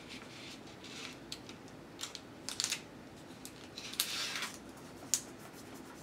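Hands handling a strip of plastic drawing film and pressing tape down over registration pins: a few short, faint rustles and crackles, with one sharp click about five seconds in.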